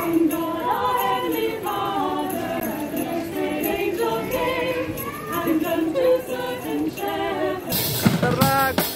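A small group of women carol singers singing together, unaccompanied. About eight seconds in, it cuts abruptly to a street drummer playing a drum kit.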